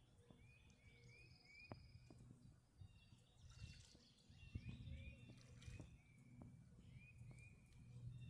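Faint outdoor ambience: short high chirping calls from small wild animals, coming in quick runs of three or four, with a brief higher trill early on, over a low steady rumble.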